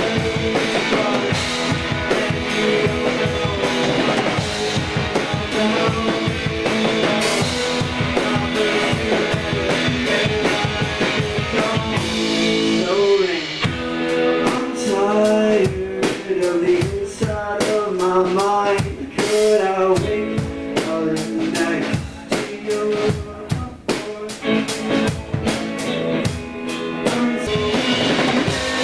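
A rock band playing: drum kit keeping a steady beat under guitars, with a bending, wavering lead line coming in about halfway through.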